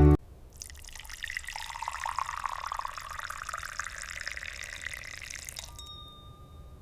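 Liquid poured in a steady stream into a vessel, its pitch rising as the vessel fills, stopping about six seconds in.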